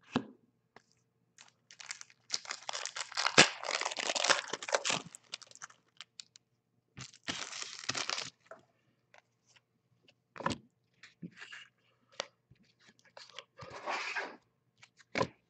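Foil trading-card packs being torn open and crinkled, in a long tearing stretch a couple of seconds in and a shorter one about seven seconds in. Scattered light clicks and a brief rustle of cards being handled and flipped follow.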